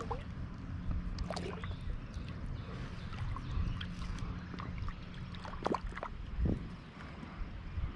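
Water lapping and dripping against the hull of a fishing kayak, with a few small splashes and knocks.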